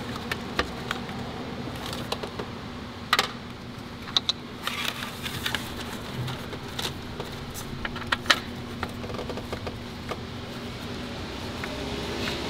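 Ratchet and socket working a Torx T30 bolt loose: scattered light metallic clicks and taps at irregular intervals, over a steady low hum.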